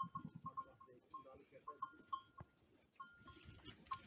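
A flock of Chios sheep with small bells tinkling faintly and irregularly as the animals move about.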